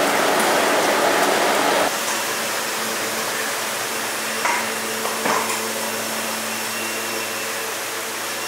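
Steady machinery noise in a rice-handling brewery: a loud rushing noise that drops about two seconds in to a lower, humming drone, with two short knocks near the middle as a steel bin of steamed rice is handled.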